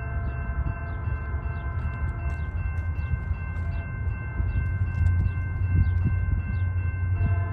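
Railroad grade-crossing bell ringing in quick, even strikes, about two to three a second, over the low rumble of an approaching train that grows a little louder about five seconds in.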